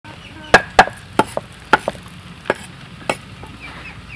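A knife chopping red chillies on a wooden chopping block: about eight sharp, unevenly spaced knocks that stop about three seconds in.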